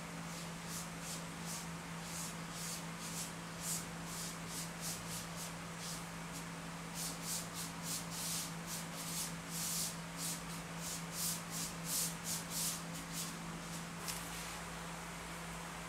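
Paintbrush bristles brushing black paint across paper: repeated short, hissy strokes, a couple a second, coming thicker in the middle and stopping about two seconds before the end, over a steady low hum.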